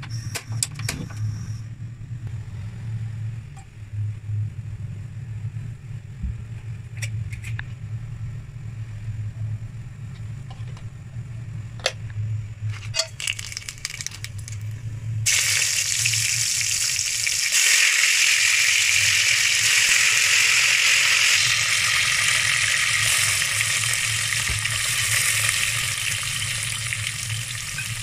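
A low steady hum with a few light clicks, then about halfway through a sudden loud sizzle as sliced shallots and curry leaves go into hot oil in a steel pot, frying steadily.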